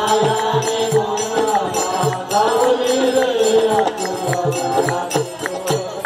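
Group singing a Marathi devotional bhajan, with percussion keeping a steady beat of about three strokes a second: low drum thumps and sharp metallic ticks.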